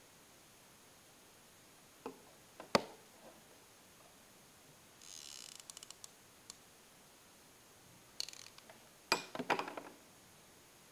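Small handling noises as a pencil and a glitter foam cutout are picked up and moved on a table: a few sharp taps and clicks about two seconds in and again near the end, with a brief rasping crackle in the middle.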